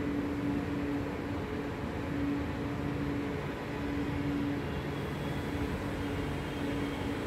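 Escalator running: a steady mechanical hum and rumble, with a low droning tone that fades in and out every second or so.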